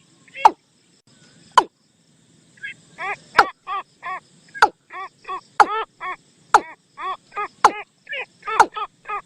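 A bird-call recording of the kind played to lure birds: after a short pause, a quick run of short, arching call notes, about three a second, punctuated by sharp clicks about once a second.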